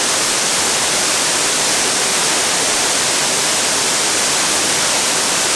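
Waterfall water rushing: a steady, even hiss that does not change.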